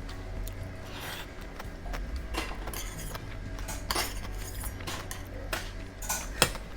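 Eating utensils clinking and scraping against dishes in a series of short clicks, with one sharp clink near the end, over a steady low hum.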